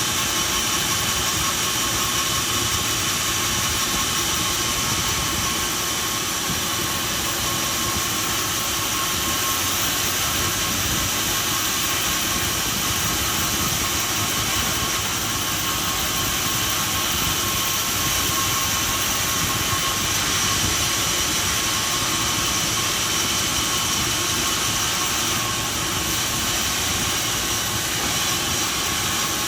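Sawmill machinery running steadily: a constant loud mechanical noise with a few steady high tones above it.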